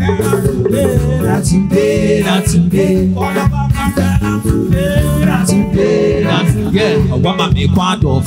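Upbeat dance song played loud, with a heavy repeating bass beat and a man singing over it into a microphone.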